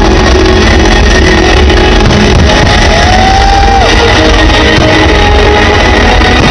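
Loud rock-style music with guitar, steady throughout.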